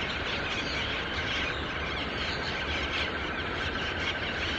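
Dense chorus of bird calls: many short chirps and squeals overlapping, with a steady high trill running underneath.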